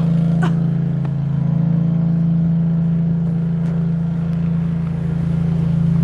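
Riding garden tractor's engine running steadily at a constant pitch while it plows snow with its front blade.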